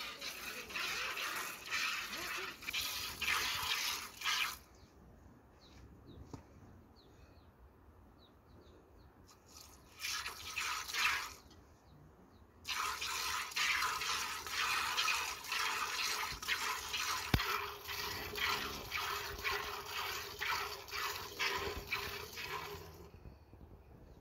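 A cow being milked by hand: rhythmic squirts of milk hitting milk in a plastic bucket. The squirting stops for several seconds about five seconds in, comes back briefly, then runs on steadily.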